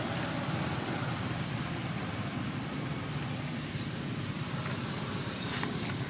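Steady low rumbling background noise with a hiss over it. A few faint clicks come near the end.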